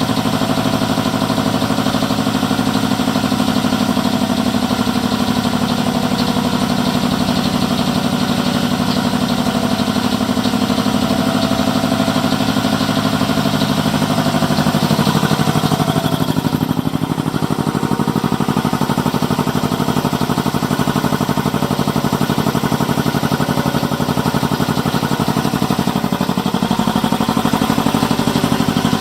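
Speedaire 1WD71 10 HP two-stage air compressor running steadily with a fast even pulse, its electric motor driving the pump to recharge the 85-gallon tank after the pressure was bled down to the 100 PSI cut-in.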